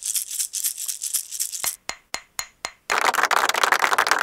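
Short percussive intro music: a fast shaker-like rhythm, then four sharp ringing taps about a quarter second apart, then a denser, busier sound from about three seconds in.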